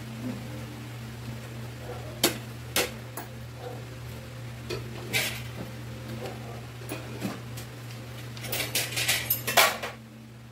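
Tableware clinking during a meal: a spoon and fork knocking against plates, a few separate clinks, then a quick run of clatters near the end, over a steady low hum.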